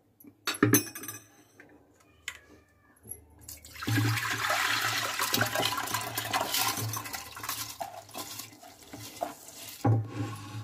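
Soaked basmati rice and its water poured from a bowl into an aluminium pressure cooker: a few knocks about a second in, then a rush of splashing water for about six seconds.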